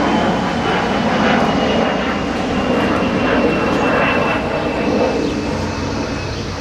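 Loud, steady engine noise with rushing air and a faint high tone that slowly falls in pitch.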